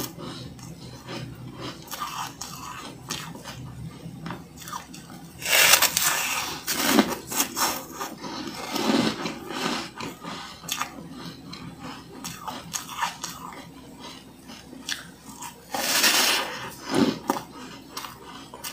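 Close-miked biting and chewing of a slab of freezer frost: two loud crunching bites, about five and a half and sixteen seconds in, with smaller crackling crunches of chewing between them.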